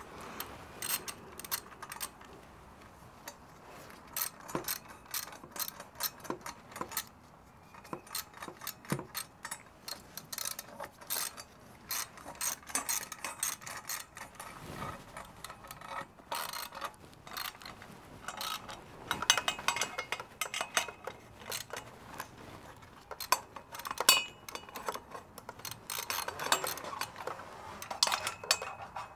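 Hand ratchet clicking in short, irregular runs, with clinks of metal tools.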